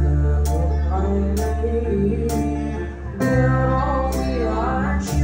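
Live band music: a male singer into a microphone over electric guitar, bass and keyboard, with a steady percussion beat of about one sharp hit a second.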